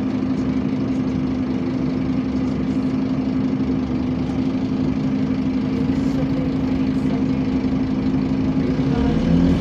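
Engine cooling fan of a first-batch Scania bus running with a steady hum over the idling engine, heard from inside the passenger cabin. Near the end a second, rising note comes in.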